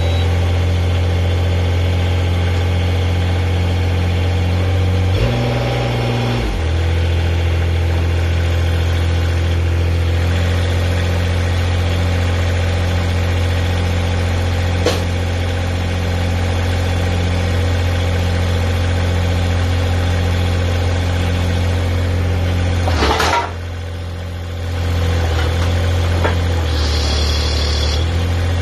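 The engine of a homemade backhoe excavator runs steadily. Its note shifts briefly about five seconds in, and it drops lower for a couple of seconds past the twenty-second mark before picking back up.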